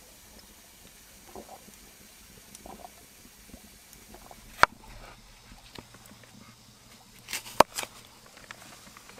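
Faint swallowing while drinking from a plastic canteen, then a single sharp click about halfway through. Near the end come a few sharp knocks of a knife cutting through an apple onto a wooden cutting board.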